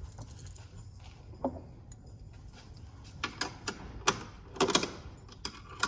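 Light clicking and jangling of small metal parts, in a run of sharp clicks over the last half, with a brief falling squeak a little before.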